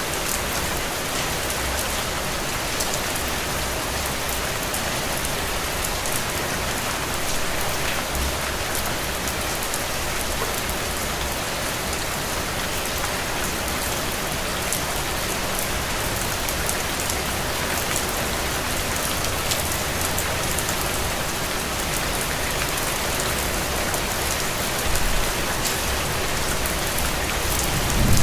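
Steady rain falling on a window: an even hiss with scattered drop ticks, and a brief low rumble about 25 seconds in.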